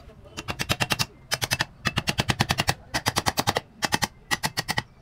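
A small hammer tapping rapidly on the metal housing of an electric water-pump motor. The blows come in quick runs of several strikes, about seven a second, each with a short metallic ring.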